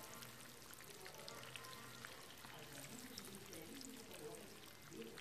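Breaded cheese sticks frying in hot oil in a pan: a faint, steady sizzle with scattered small crackles.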